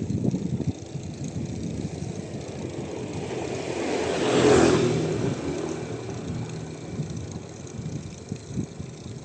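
A motor vehicle passing by: its engine grows louder to a peak about four and a half seconds in, then fades away.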